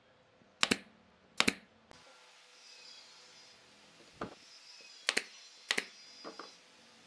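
SOYI nail gun firing into the wooden strips of a lamp shade: two sharp shots less than a second apart, then after a pause two more, with a few lighter knocks of the wood between and after.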